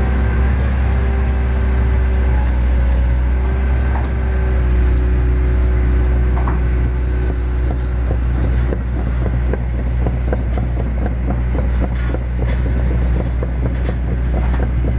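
Excavator's diesel engine running steadily while the bucket works the water of a peat ditch. A steady tone over the engine steps down in pitch in the first half. From about halfway on, a rapid clatter rides over the drone.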